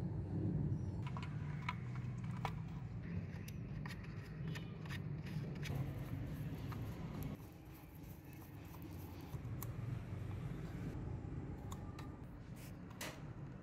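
Scattered light clicks and taps of a screwdriver and fingers handling the plastic case and circuit board of a toy tape recorder, with a few sharper clicks near the end, over a low steady background rumble.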